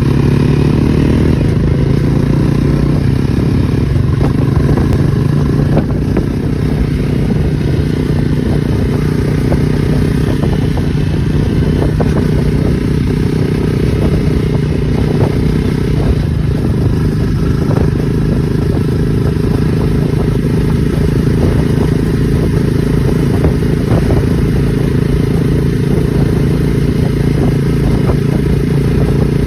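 Jawa Perak's 334 cc single-cylinder engine running steadily under way, with its exhaust note holding an even pitch at a steady cruising speed.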